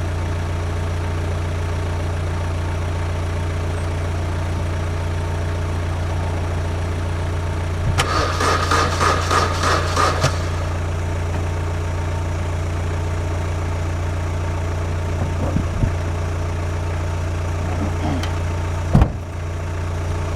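About eight seconds in, the Tigra gives a rapid clicking chatter of about four clicks a second for about two seconds as the starter is tried, which the owner takes for a flat battery. A steady low hum runs underneath, and there is a single thump near the end.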